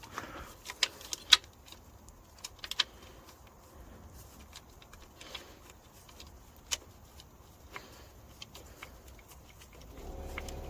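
Scattered sharp metallic clinks and clicks of hand tools and small metal parts being handled while working on a BMW M57 diesel engine, the loudest about a second in. A steady hum starts near the end.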